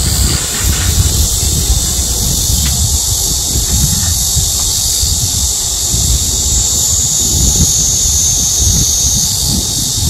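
A loud chorus of cicadas buzzing in a steady, high-pitched drone, with a low, uneven rumble underneath.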